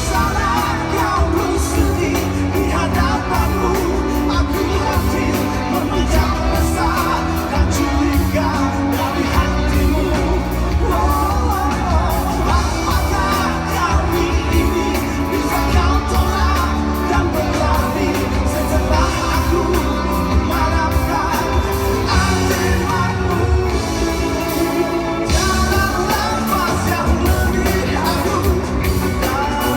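Live band playing pop-rock with a singer's voice over steady bass and drums.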